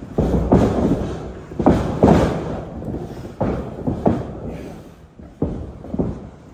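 Wrestlers grappling on a ring canvas: about eight thuds and slaps of bodies and feet on the mat, coming roughly in pairs, echoing in a large hall.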